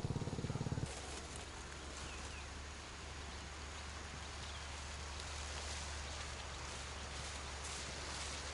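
A motorbike engine running with a rapid pulse cuts off sharply about a second in. What follows is steady outdoor background hiss with a few faint high chirps.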